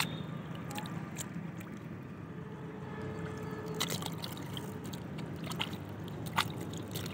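Hands splashing and sloshing in shallow standing water while pulling water lily seed pods off their stems, with a few sharper splashes and drips over a steady low background.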